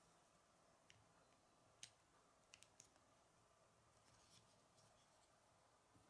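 Faint clicks of small plastic Lego bricks being handled and pressed together: one click about a second in, a sharper one just before two seconds, then three quick ones close together, and a few fainter ticks later, over near silence.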